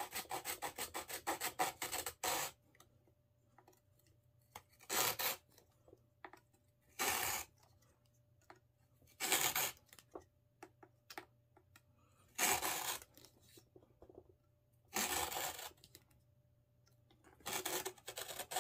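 Very small hand saw cutting through a fishing rod section. A quick run of short back-and-forth strokes about five a second for the first two seconds, then single scraping strokes every two to three seconds.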